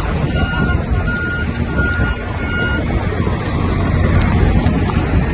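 Strong wind buffeting the microphone beside a large fire, a loud low rumble. Over it, a repeated electronic beep sounds about one and a half times a second for the first three seconds.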